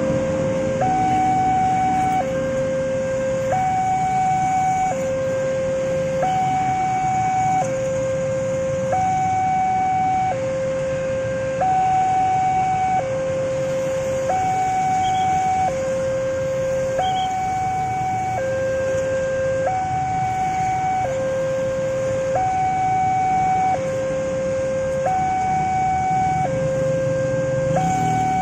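Level-crossing warning alarm from the loudspeaker on the signal post: an electronic two-tone signal that alternates between a higher and a lower tone, about one second each, warning that a train is coming. Motorcycle engines rumble underneath.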